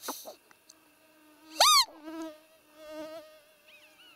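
Roe deer call (lure) blown to imitate a doe's high-pitched peep, the sound used to draw a rutting roe buck. One loud peep rising then falling about a second and a half in, with a short falling peep at the very start and softer peeps after it. A faint steady hum runs underneath.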